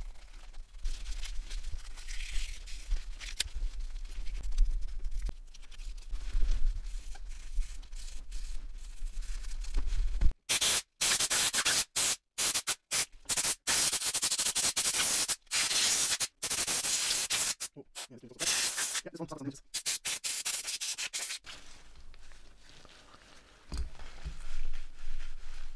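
Rubbing and scrubbing noises from a phone's parts being cleaned by hand. About ten seconds in, a stretch of loud, hissy scrubbing starts and cuts in and out abruptly, then settles back to quieter handling.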